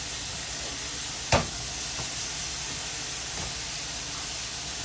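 Ribeye steaks sizzling steadily in a pan preheated to about medium-high, just laid on to sear, with a single sharp knock about a second in.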